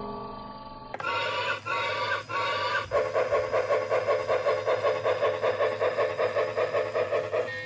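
Built-in steam-locomotive sound effect of a Lionel Hudson 700E animated train lamp: three whistle blasts, then fast, even chugging at about five chuffs a second.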